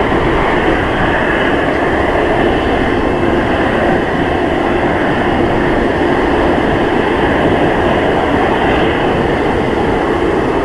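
Rolls-Royce Trent 7000 turbofans of an Airbus A330-900neo running at taxi power: a loud, steady jet noise with a faint steady hum in it, unchanging throughout.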